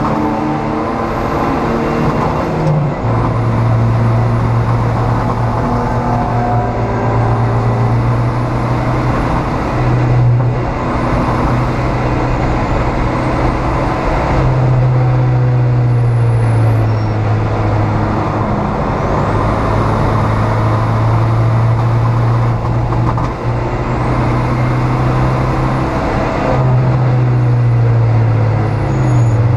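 Dodge Neon race car's four-cylinder engine running hard under load, heard from inside the stripped cabin. Its pitch steps down and climbs again several times as gears are changed, over a steady rush of wind and tyre noise.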